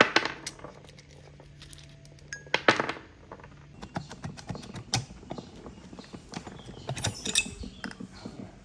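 Metal clinks and knocks as a rusty air-cooled motorcycle cylinder is worked loose and lifted off its studs and piston. There are many small clicks, with sharper knocks at the start and roughly every two to two and a half seconds after.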